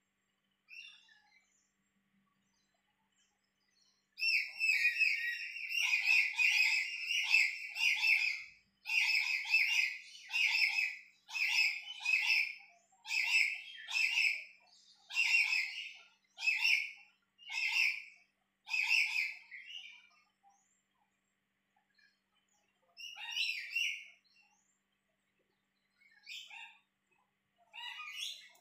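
High chirping animal calls: a long unbroken run of calls, then about a dozen short calls at roughly one a second, fading out, with a few scattered calls near the end.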